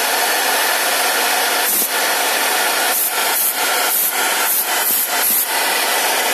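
CNC router spindle running at speed with its end mill milling wood: a steady whine over continuous cutting noise, with several brief louder bursts from about two seconds in.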